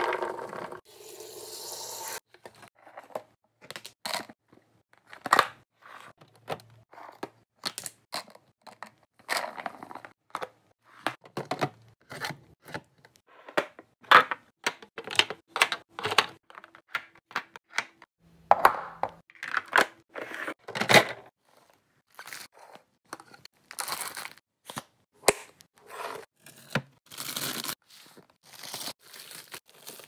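Busy handling clatter of food being put away: a string of short clicks and knocks from plastic containers and bins being set down and handled, with plastic packaging crinkling and tearing between them.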